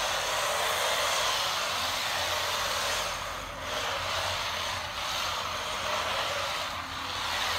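Kyosho Mini-Z AWD RC drift car driving and drifting on a laminate floor: the small electric motor and drivetrain make a steady whirring hiss. The sound dips briefly about halfway through and again near the end, as the throttle eases.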